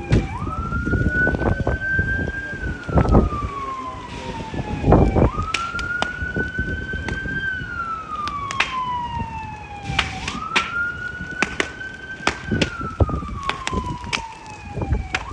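Fire engine siren on a slow wail: each cycle climbs quickly, holds, then falls slowly, repeating about every five seconds, three times over. Sharp pops and crackles from the fire sound throughout.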